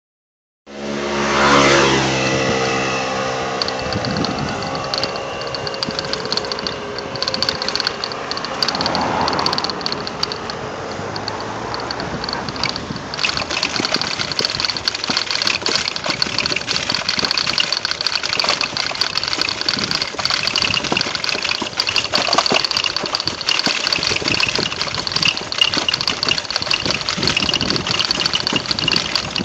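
A motor vehicle driving over brick cobblestone paving: its engine runs throughout, mixed with a continuous rattle and many small knocks from the rough stones. The engine note is strongest over the first few seconds after the sound begins.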